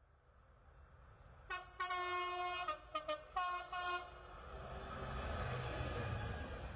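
Diesel freight locomotive's horn sounding a long blast, then two short toots and another blast, followed by the rising rumble of the locomotive's engine and its container wagons as the train approaches.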